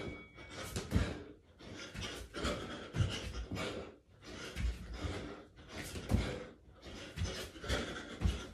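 A man panting hard from burpees and jogging on the spot, about one heavy breath a second, with a few dull thumps.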